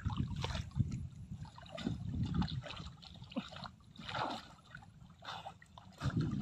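River water sloshing and splashing in irregular strokes as a person moves chest-deep through it.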